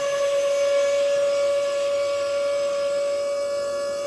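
A single steady held tone at one pitch, with faint overtones.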